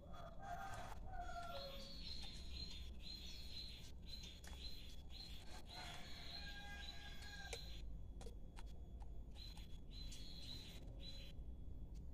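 Birds chirping: short, high chirps repeating two or three times a second, pausing briefly about two-thirds of the way through, with a few short, lower falling calls in the first second or two and faint clicks.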